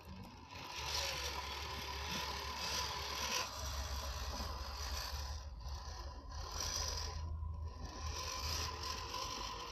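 1/10-scale RC rock crawler's electric motor and gearbox whining as it drives over rough ground, the pitch rising and falling with the throttle, with a scrape of tyres over dirt and twigs.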